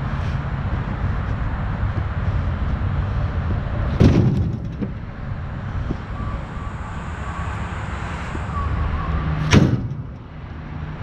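Utility vehicle engine idling steadily, with two heavy thumps about five seconds apart, typical of logs being dropped into its cargo bed or trailer.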